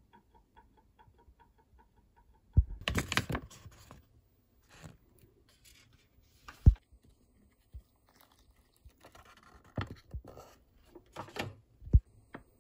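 Biscuit-mix packet handled in a kitchen: a burst of plastic rustling about three seconds in, then scattered light knocks and taps against a bowl as the mix and water go in.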